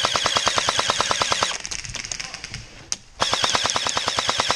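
Airsoft electric gun firing on full auto in two long bursts of rapid, evenly spaced shots, the second starting about three seconds in.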